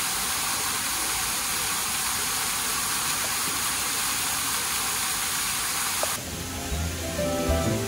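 Steady hiss of rushing water, cut off suddenly about six seconds in by background music.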